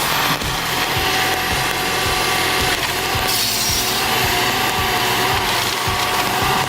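Powered machine saw cutting through wood, a loud steady noise.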